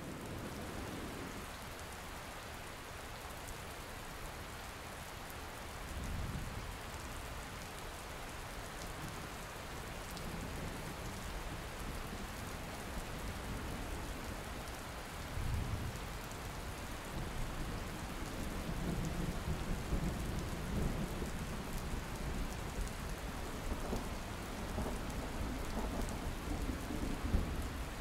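Steady rain falling over city rooftops, with thunder rumbling several times; the rumbles grow longer and louder, rolling through much of the second half.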